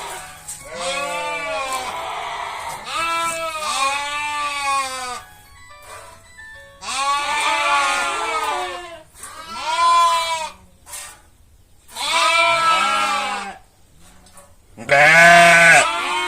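Sheep and lambs bleating repeatedly: a series of loud, quavering calls, each lasting one to two seconds, with short pauses between them.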